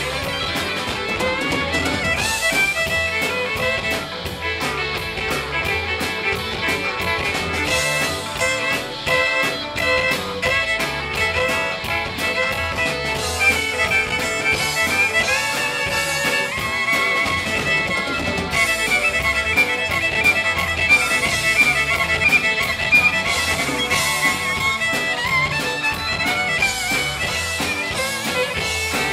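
Live country rock band playing: electric guitars, bass and drums, with a lead line over the top.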